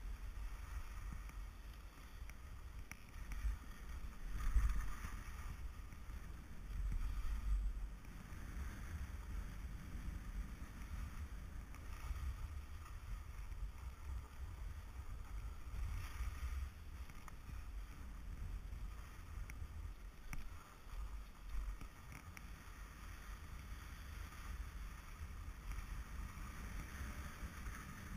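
Skis sliding and scraping over packed snow during a downhill run, with wind buffeting the microphone of a body-worn camera. The wind rumble swells around four and again around seven seconds in.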